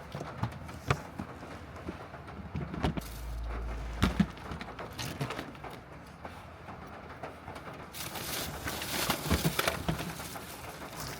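Rain on the roof and body of a Honda N-VAN kei van, heard from inside: irregular taps and drops, with a low rumble about three seconds in. The rain turns into a heavier, steady hiss near the end.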